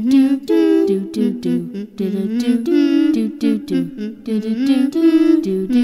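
One voice humming the song's melody without words and without accompaniment, in short notes that step up and down.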